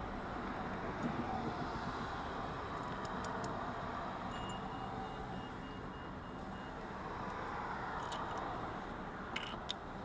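Steady background rumble with a few light clicks of small metal lock-cylinder parts being handled on a rubber bench mat, including two close together near the end.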